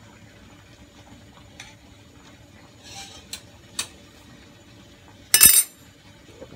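Aluminium pan lid on a fish steamer handled with a few light metal clinks, then set back down on the pan with one loud metal clank a little over five seconds in.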